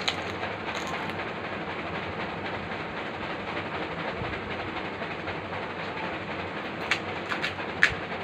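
A steady rush of background noise, with a few sharp crackles of a crisp pani puri shell: one near the start as a puri is bitten, and a cluster about seven to eight seconds in as the next puri is cracked open between the fingers.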